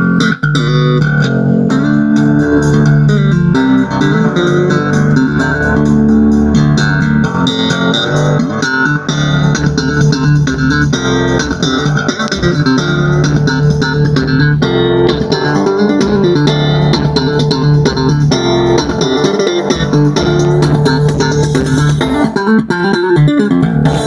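Music with prominent bass and plucked guitar played loud through a Cerwin-Vega AB36C loudspeaker and a Dual mid-high speaker, with a strong, sustained bass line.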